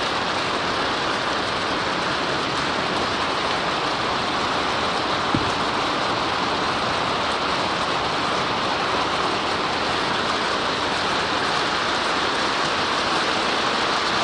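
Steady rain falling, with one brief click about five seconds in.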